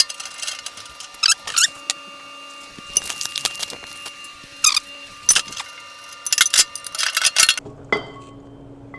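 Steel snowplow parts and loose bolts and nuts clinking and clattering as they are handled and fitted, in several short clusters of sharp clicks.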